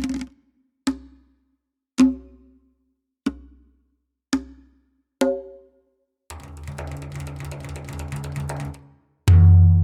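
Sampled Middle Eastern drums played from a Kontakt library: single deep strikes about once a second, each ringing briefly. About six seconds in comes a fast roll lasting about three seconds, and near the end one loud, deep hit.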